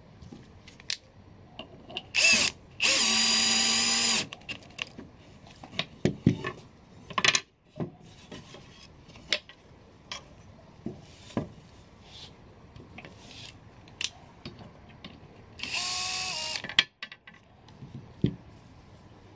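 Power drill running in short runs, driving screws into the wooden parts of a home-made rigid heddle loom: a brief burst about two seconds in, a steadier run of about a second just after, and another run near the end. Wooden knocks and clicks from the loom parts being handled fall in between.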